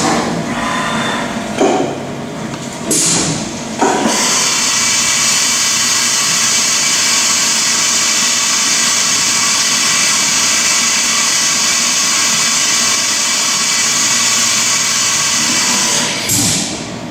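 CNC milling machine cutting a metal part under flood coolant: the spindle runs with a steady whine over a high hiss of cutting and coolant spray. The sound dips and changes a few times in the first four seconds and again near the end.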